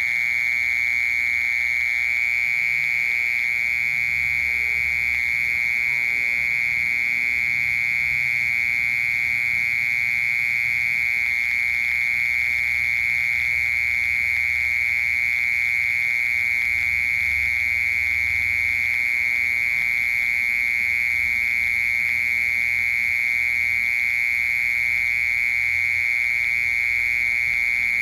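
Cricket singing: one continuous, unbroken high-pitched trill that holds steady throughout.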